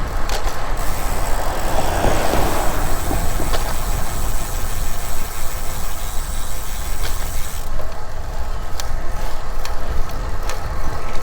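Steady wind rush and tyre rumble from a road bike riding along a street, with a few light clicks in the last few seconds.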